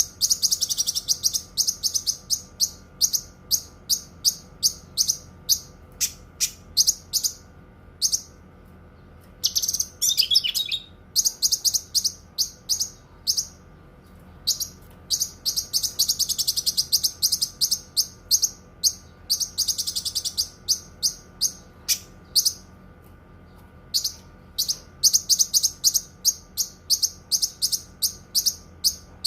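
Cucak kinoi singing: long runs of sharp, high chirps repeated several times a second, broken by short pauses, over a faint steady hum.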